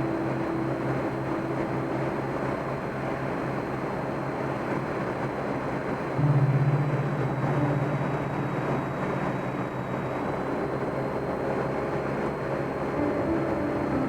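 Cessna 172M's four-cylinder Lycoming engine and propeller droning steadily in the cabin, with a low tone that briefly grows louder about six seconds in.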